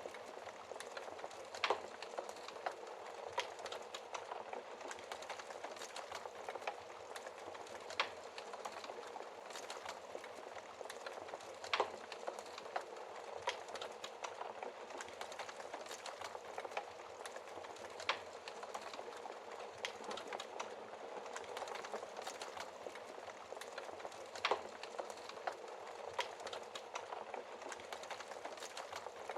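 Wood fire burning in a fireplace: a steady crackle with many small ticks and a handful of louder pops from the burning wood, about five in all.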